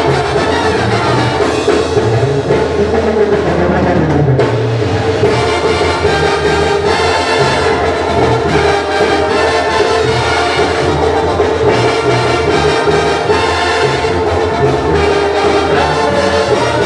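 Brass band music with drums, playing continuously.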